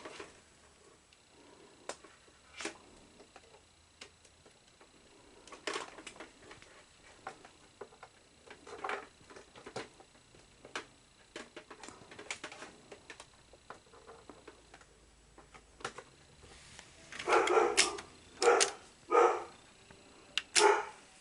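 A dog barking four times near the end, after a stretch of scattered light clicks and handling noises.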